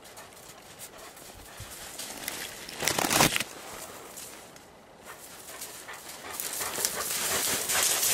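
Dog panting, mixed with brushing and rustling noise from spruce branches and snow. There is a louder rustling burst about three seconds in, and the noise builds again toward the end.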